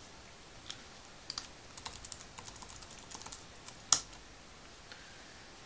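Typing on a computer keyboard: a run of light, irregular key clicks, then one sharper, louder click about four seconds in.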